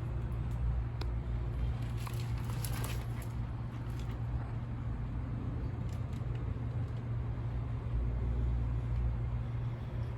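A steady low mechanical hum, with a few light clicks in the first three seconds and a couple more later.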